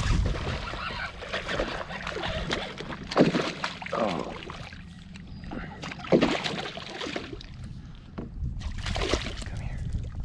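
Water sloshing and splashing beside a small fishing boat as a hooked fish is fought in, with sharp splashes about three seconds apart.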